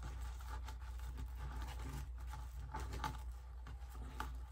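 Faint rustling and scraping of plastic deco mesh being rolled up by hand on a cutting mat, over a low steady hum.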